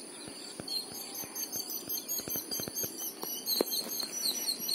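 Outdoor lakeside ambience: a steady high-pitched insect drone with birds chirping, the chirps thickening near the end, over scattered small clicks and light splashes of someone moving in shallow water.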